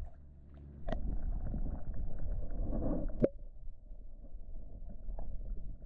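Muffled low rumble and swirl of creek water heard through a submerged camera, with a faint tap about a second in and a sharp knock a little after three seconds, after which the sound turns duller.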